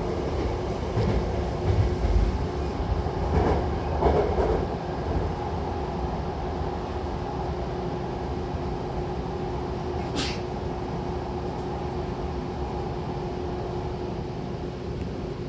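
Hankyu commuter train running between stations, heard from inside the car: a steady rumble of wheels on the rails with a constant hum, a few heavier thuds in the first few seconds, and one short sharp noise about ten seconds in.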